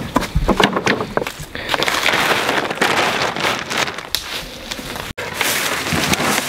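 Black plastic tarp crinkling and rustling as it is pulled and tucked over a stacked firewood pile, with scattered knocks and clicks. The sound breaks off abruptly about five seconds in, then a wooden pallet is picked up.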